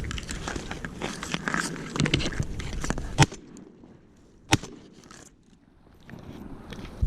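Rustling and scraping of close movement in a duck blind, followed by two sharp knocks a little over a second apart, the second one about two-thirds of the way through.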